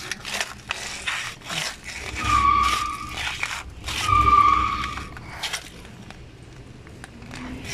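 Spin-on oil filter being twisted tight by hand, gripped through sandpaper: rustling and scraping, with two squeaks of about a second each as it turns.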